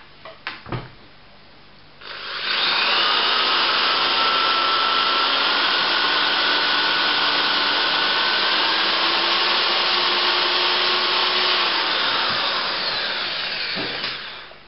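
Power drill running in reverse, spinning a speedometer cable that drives a motorcycle speedometer backwards so the odometer rolls back. After a few light clicks it starts about two seconds in with a steady motor whine that rises a little, then slows and fades out near the end.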